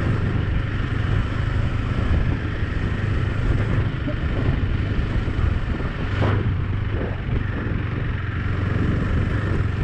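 Motorcycle riding over a rough stone-paved and gravel track: steady engine and road noise, with a single brief knock about six seconds in.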